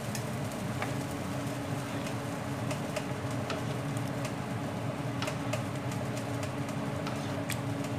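A steady low hum, with scattered faint clicks and taps as a spoon stirs thick simmering kadhi in a non-stick wok.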